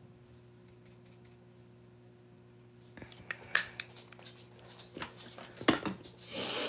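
Faint steady hum, then from about three seconds in, clicks, knocks and rustling of small hard objects being handled, with a loud hiss starting just before the end.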